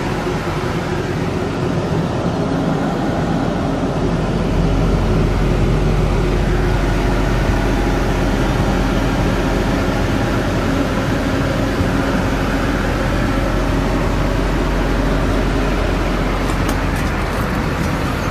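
An engine running steadily, slightly louder from about four seconds in.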